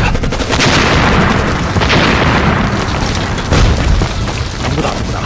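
Explosions in a film battle soundtrack: several heavy booms one after another, blasting up smoke and dust.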